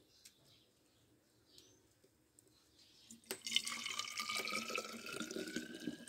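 Coffee being poured from a pot into a thermos flask. After near silence, a light knock about three seconds in, then the pour starts, its tone rising steadily in pitch as the flask fills.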